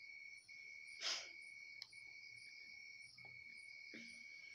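Faint, steady high-pitched chirring background tone with brief regular breaks, and a short soft puff of noise about a second in.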